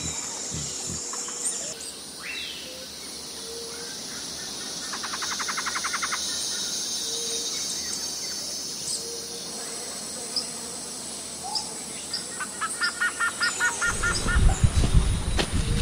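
Wild birds chirping and calling over a steady high insect drone, with a rapid trill about five seconds in and a quick run of repeated notes near the end. A low rumble comes in during the last couple of seconds.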